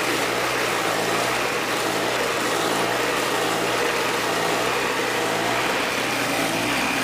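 Small engine-driven cassava grating machine running steadily while peeled cassava roots are pushed into its hopper and grated.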